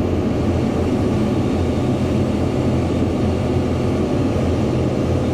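Excavator engine running steadily under load while the operator works the bucket and boom.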